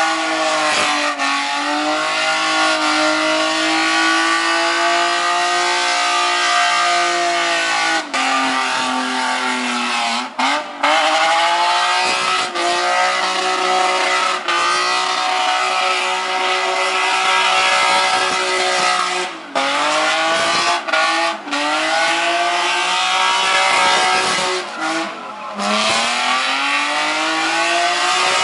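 Nissan Laurel's engine held at high revs during a burnout, its tyres spinning on the pad. The revs drop briefly and climb back up several times.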